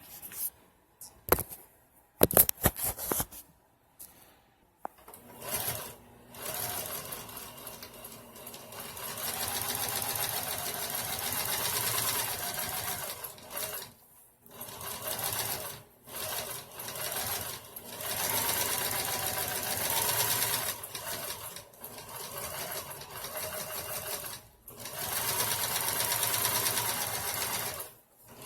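Portable walking-foot industrial sewing machine stitching through four layers of heavy material. It runs in stretches of a few seconds with short stops, its speed rising and falling under the foot control. A few sharp clicks and knocks come before it starts.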